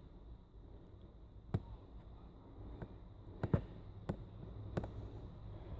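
About six small, sharp clicks and taps spread over a few seconds, two of them close together near the middle. They come from small plastic parts inside an opened tablet being slid and clicked into place by hand.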